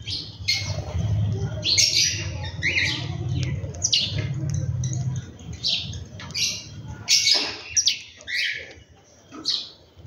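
Birds calling over and over in short, sharp chirps and squawks, many of them falling in pitch, with a low steady hum underneath for the first half.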